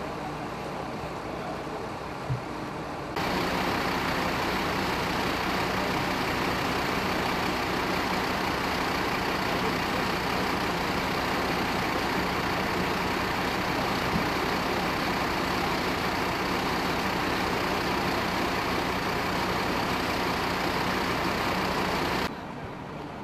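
Fire engine's diesel engine idling close by, a steady drone with a constant low hum. It cuts in abruptly about three seconds in and drops away just as suddenly near the end, leaving a quieter rumble.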